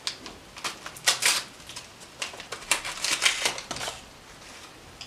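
Paper tea-bag envelope being torn open and handled, giving a string of short, crisp crackles and rustles.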